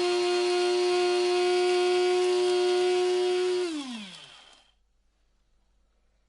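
Electric coffee grinder's motor running at a steady high hum, then switched off about three and a half seconds in, its pitch falling as it spins down to a stop within about a second.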